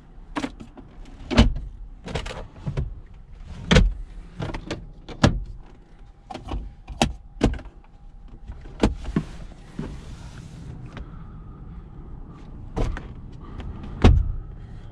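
A car's doors, switches and fittings being worked by hand: a run of sharp clicks and knocks at uneven intervals, with a hiss of about two seconds midway.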